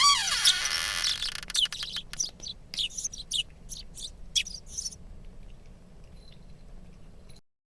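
Birds chirping: many short, high chirps, opening with a falling sweep. The chirps thin out and the sound cuts off abruptly near the end.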